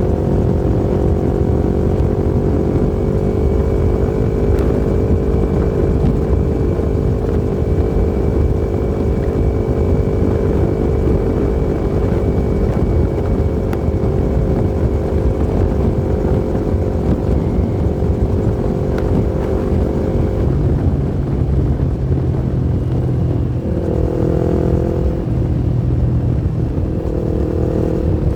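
Yamaha MT-25's 250 cc parallel-twin engine running at a steady pitch over a constant low rumble; about twenty seconds in the engine note drops, then rises and falls again a couple of times near the end.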